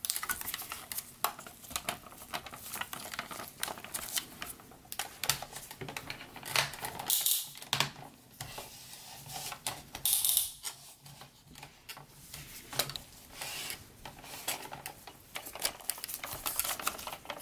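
Parts of a large transformable Dinobot robot figure clicking and clacking irregularly as it is handled and its panels and joints are pushed into place, with a few brief rubbing scrapes.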